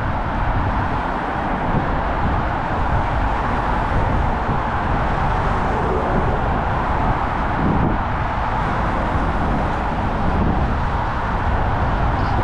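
Steady road traffic: a constant wash of car tyre and engine noise with a low rumble underneath and no single vehicle standing out.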